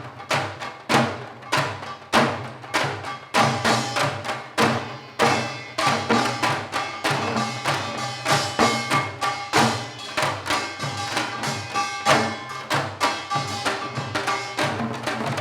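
Janggu (Korean hourglass drum) played seoljanggo style: a fast, dense run of accented strokes on the drum's two heads. Through the middle, held pitched tones sound over the drumming.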